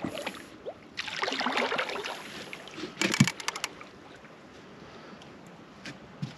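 Handling noises as an angler takes up a catfish rod on a bite: rustling, splashy bursts, then a quick run of clicks about three seconds in.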